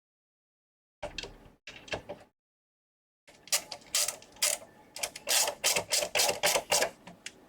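Small mechanical clicks and snaps of a PlayStation 5 console being handled and reassembled: two short scrapes early, then from a little past halfway a quick run of sharp clicks, about three or four a second.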